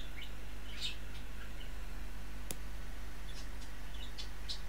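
Steady low electrical hum with scattered faint, short high chirps, and one sharp click about two and a half seconds in.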